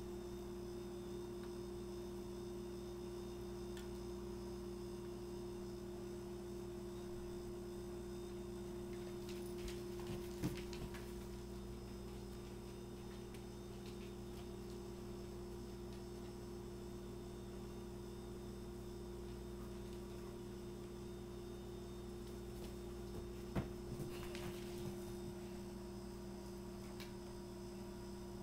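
Steady electrical mains hum, a few even tones over a low background, broken twice by a brief sharp tap.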